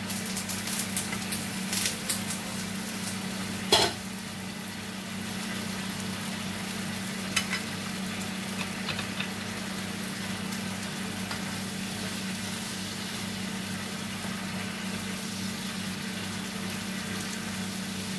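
Chicken livers sizzling in a frying pan with a little added water, with a steady low hum underneath. The spatula and pan lid clink and knock against the pan several times in the first four seconds, loudest near four seconds in, and twice more a few seconds later.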